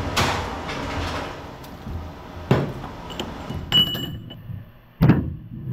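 Metal clanks and knocks from handling a scrap AC compressor stator and its pulled copper windings: four separate hits, one about two-thirds of the way in with a brief metallic ring, the loudest near the end.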